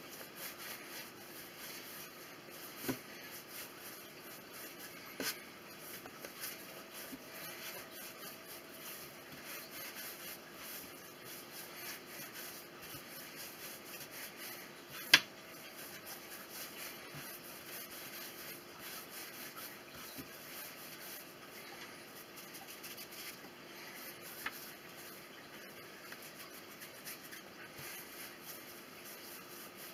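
Hands rolling bread dough into a baguette on a floured worktop: faint soft rubbing, broken by a few light knocks and one sharp click about halfway through.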